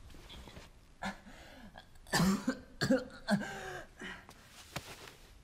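A young man coughing and groaning in several short bursts, the loudest between about two and three and a half seconds in.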